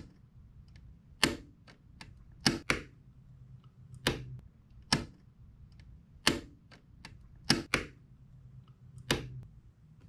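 Lutron Diva LED+ paddle dimmer switch clicked repeatedly, about ten sharp clicks, some in quick pairs as the paddle is pressed and let go. The owner finds this paddle loose in its frame and cheap-feeling.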